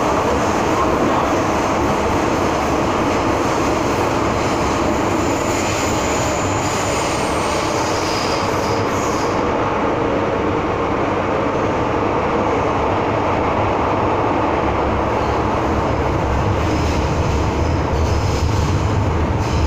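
Steady running noise inside an MTR M-Train (Metro-Cammell EMU) car: wheel-on-rail rumble and hum with no let-up. A faint, high-pitched wheel squeal comes in for a few seconds around the middle.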